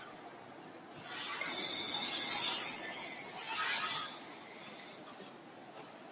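Handheld fiber laser welding with a wobble head: a hissing, crackling burst about a second in that lasts about a second and then tapers off, with a weaker second burst near four seconds.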